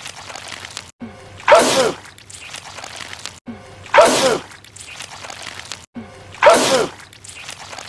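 A man's sneeze from a film soundtrack, repeated three times about two and a half seconds apart as the same clip loops. Each is a short lead-in, then a loud sudden burst with a falling voice.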